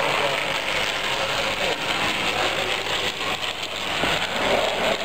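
Small electric motor and wheels of a model tram running along a layout track, heard over the steady background noise of a busy hall.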